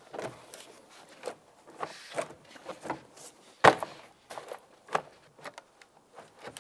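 Plastic interior door panel being set onto a pickup's door shell: irregular knocks, taps and rubbing as its hooks drop into place, with one sharp knock a little past halfway.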